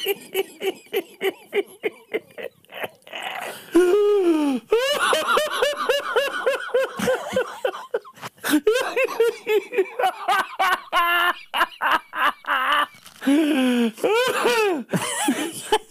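A man laughing hard, in long runs of quick ha-ha pulses with a few short breaks.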